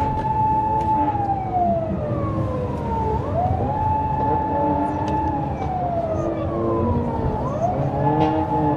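Police car siren wailing in a slow cycle: it holds a high pitch, falls for about two seconds, then sweeps quickly back up, twice. Underneath is the steady rumble of car engines and road noise.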